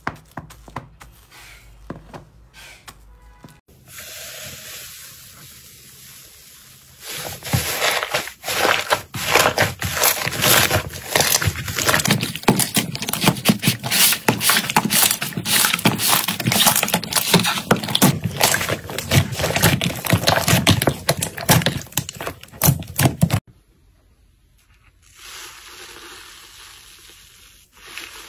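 Hands squishing and kneading thick slime, making a dense run of sticky pops and crackles that is loudest through the middle. Before it, a metal potato masher pressing slime gives lighter, sparse clicks. Near the end, a hand pressing foamy slime gives a soft crackle.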